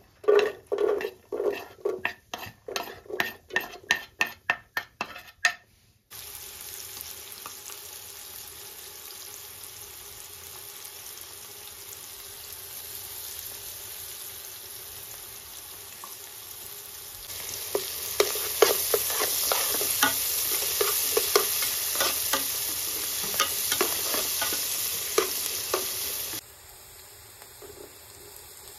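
Chopped onions frying in oil in a metal pot, a steady sizzle with stirring. It opens with about three sharp stirring strokes a second for some six seconds; later the sizzle grows louder and busier with clicks, then drops off suddenly near the end.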